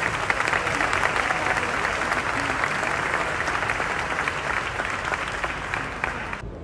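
Audience applauding, a dense, steady clapping from a large crowd that cuts off suddenly near the end.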